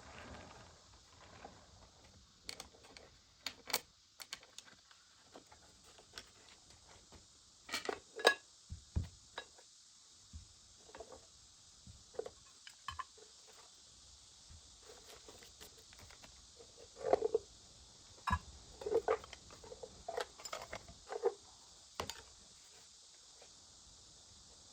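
Scattered light knocks, clicks and rattles, as of small hard objects being handled and set down, over a steady faint hiss.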